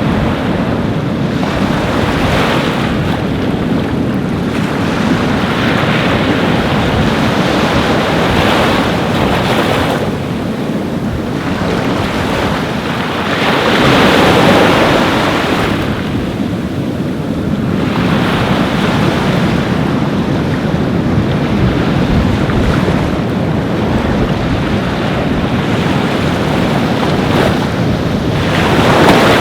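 Ocean waves breaking and washing on a beach, swelling and easing every few seconds, with the loudest surge about halfway through and another near the end; wind buffets the microphone.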